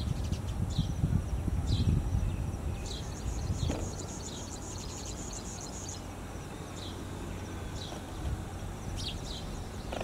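Baya weaver calling: short, high chirps that sweep downward, about one a second, with a couple in quick succession near the end, over a thin steady high buzz. A low rumble sits underneath in the first two seconds.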